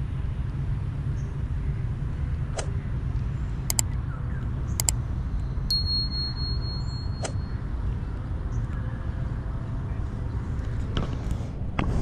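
Outdoor park ambience: a steady low rumble with a few sharp clicks, and a single high, steady whistle-like tone lasting about two seconds near the middle.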